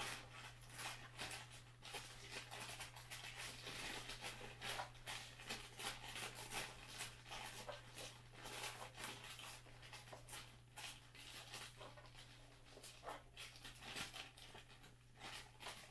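Faint crinkling of a plastic bag of Nerf Rival foam balls being shaken, with the balls trickling through a small hole torn in the bag and dropping into a plastic hopper in light, irregular taps. A steady low hum runs underneath.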